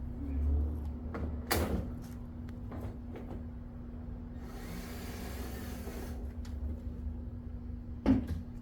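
Handling noises during car work: a few sharp knocks and clicks, one about a second and a half in and one near the end, with a soft rushing rustle midway, over a steady low hum.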